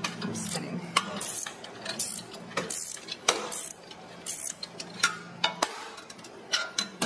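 Irregular metallic clicks, knocks and clinks as a threaded brass depositing sleeve is worked loose by hand from a stainless steel gummy-depositor hopper, over a low steady hum.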